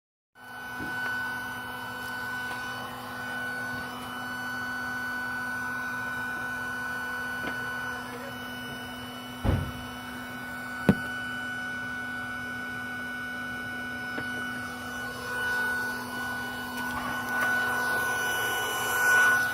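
A machine running steadily, with a constant high whine over a lower hum, and two sharp knocks about halfway through.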